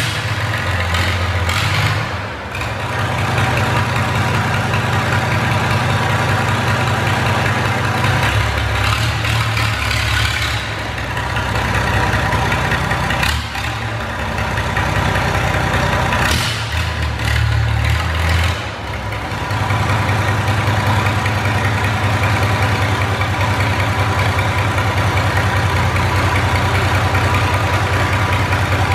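Big engine of a home-built rat truck running through a loud performance exhaust, a deep roar echoing inside a shed. The revs rise and fall a few times, then it settles into a steady idle for the last third.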